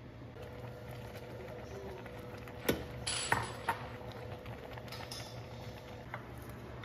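Kitchen cookware clinking: a few sharp knocks of pots or lid about three seconds in, the loudest in the middle, with a brief rustle between them and one lighter click near the end, over a steady low hum.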